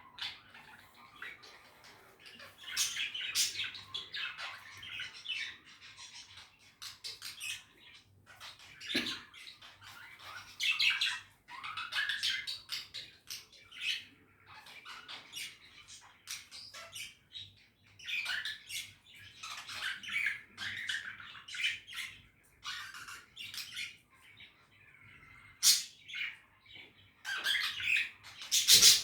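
Budgerigars chattering, with many short chirps, warbles and squawks in bursts separated by brief pauses, and a louder burst near the end.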